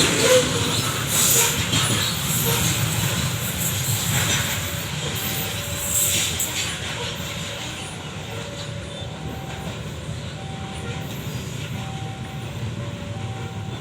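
Long coal freight train rolling on the rails, with a steady rumble and wheels clattering over rail joints. The sound slowly fades. From about a third of the way in, a faint two-note tone repeats over it.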